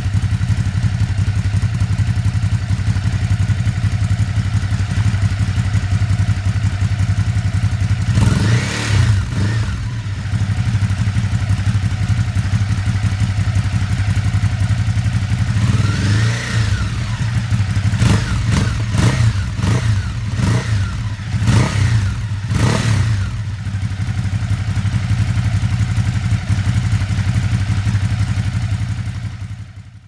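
Ducati Hypermotard 950's 937 cc Testastretta L-twin idling through Akrapovic twin slip-on silencers. Its throttle is blipped once about eight seconds in and again a little past halfway, then in a quick run of short revs a couple of seconds later before it settles back to a lumpy idle. The sound fades out at the very end.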